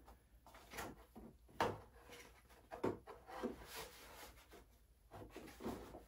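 Plastic front body panels of a Yamaha Zuma scooter being worked loose by hand: a few faint, scattered plastic knocks and rubs about a second apart.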